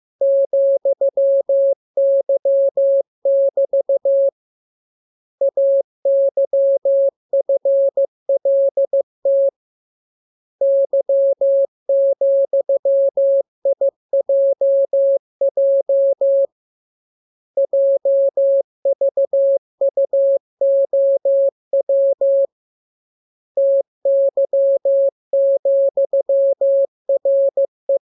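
Morse code practice tone: a single steady beep keyed into quick dots and dashes, sent as runs of characters with pauses of about a second between them, five runs in all, making up a practice radiogram for copying by ear.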